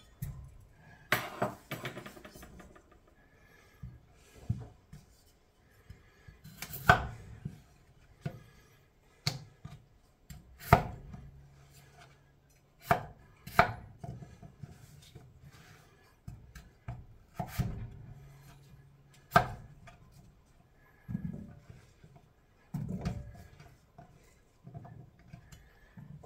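Knife chopping potatoes: single sharp chops at an uneven pace, roughly one every second or two.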